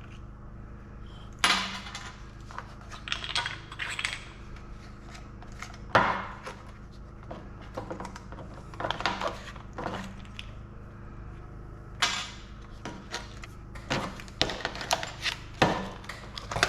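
Metal parts of a steel control panel knocking and clinking as they are worked loose and handled. The knocks come irregularly, a few seconds apart, some sharp and ringing, the loudest about a second and a half in, about six seconds in and about twelve seconds in.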